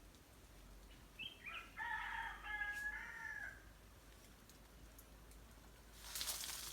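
A rooster crowing once, a multi-part cock-a-doodle-doo lasting about two and a half seconds. Near the end there is a short burst of noise.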